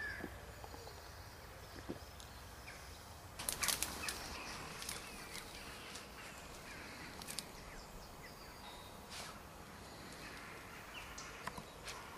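A Bedlington terrier rustling and scraping in undergrowth as she hunts for a mouse: leaves and twigs crackle in irregular spells from about three and a half seconds in.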